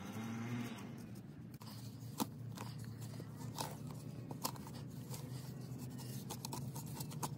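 A small hand digging tool scraping and gouging damp clay soil out of a hole, with irregular crunches and sharp scratches over a steady low hum.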